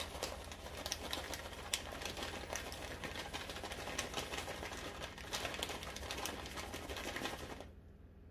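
Raisins being poured from a plastic bag into a glass mixing bowl: a dense, irregular patter of small ticks and clicks that stops near the end.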